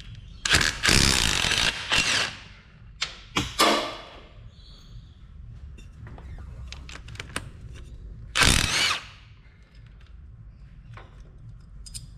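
Impact wrench (rattle gun) running in short hammering bursts, spinning the 14 mm nuts off the front drive shaft flange; the longest burst is near the start, with shorter ones about three seconds in and again near the two-thirds mark.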